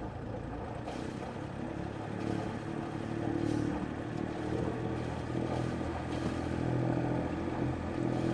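Sailboat's inboard engine running steadily with the boat under way, a low hum that grows a little louder over the stretch.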